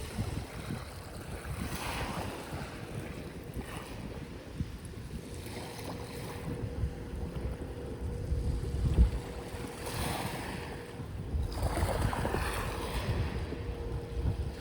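Sea waves washing onto the shore, several swelling surges of surf over a steady rumble, with wind buffeting the microphone. A faint steady hum comes in about halfway through.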